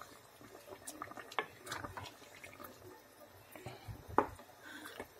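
Wooden spoon gently stirring a pot of chunky fish curry: soft wet sloshing with a few light clicks and knocks, the loudest about four seconds in.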